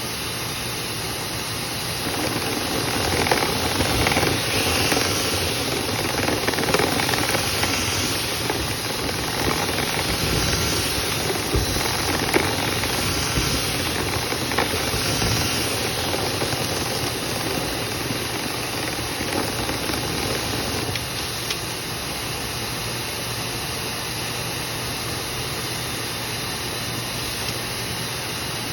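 Dryer-vent cleaning equipment running with a steady hiss and low hum. From about two seconds in until about twenty seconds it gets louder, with scattered rattles and ticks of debris moving through the duct.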